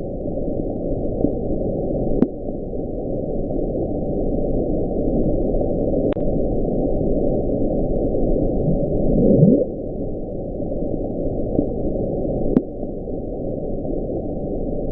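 The 1997 'Bloop', a deep-ocean sound recorded by an underwater microphone (hydrophone), is played back. It is a steady low rushing noise with a bright rising sweep of pitch about nine seconds in, fainter sweeps earlier and later, and a few faint clicks. Its cause was long unexplained, and collapsing icebergs are among the theories.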